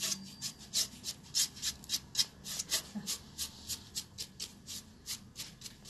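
Paintbrush scrubbing metallic copper paint onto the ridged page edges of a painted book-shaped box, in short scratchy strokes about three a second.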